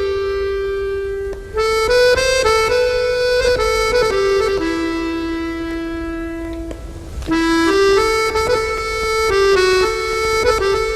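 Background music: an accordion-like reed instrument playing a slow melody of held notes, with a brief pause about a second and a half in.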